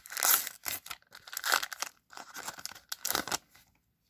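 A trading-card pack wrapper being torn open and crinkled, in several rough bursts of tearing that stop about three and a half seconds in.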